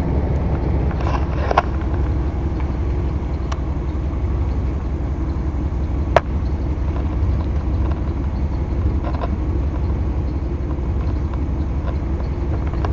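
Steady low drone of a vehicle moving, engine and road noise heard from inside the cabin, with one sharp click about six seconds in.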